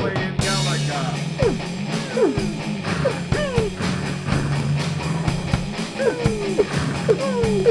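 Rock music soundtrack: electric guitar and drums, with a steady drum beat and notes sliding up and down in pitch.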